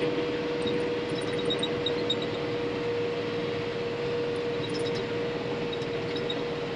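Tractor engine running steadily, heard from inside the cab: an even drone with a constant whine held on one pitch.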